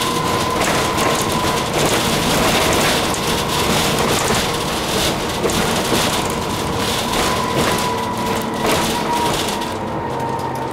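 Interior of an Alexander Dennis Enviro400 bus on the move: steady engine hum with a thin whine over it, road noise and constant small rattles from the cabin fittings. The hiss eases near the end.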